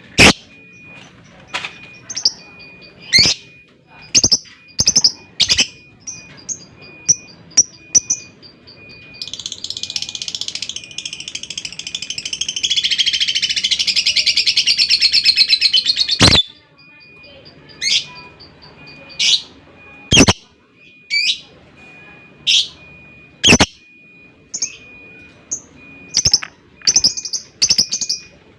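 Lovebird calling with sharp, repeated chirps, then a long, rapid chattering trill (the 'ngekek') of about seven seconds that cuts off suddenly, followed by more sharp chirps.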